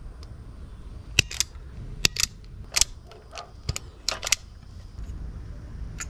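Vise-Grip automatic wire stripper clicking as it grips and strips the insulation off 8-gauge stranded wire: a string of sharp clicks, several in quick pairs, over a low steady hum.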